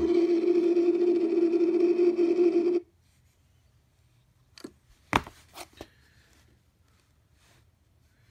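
A loud, steady droning tone played through the Hart HPAD01 radio's speaker in Bluetooth mode cuts off suddenly about three seconds in. A few light clicks of its front buttons being pressed follow.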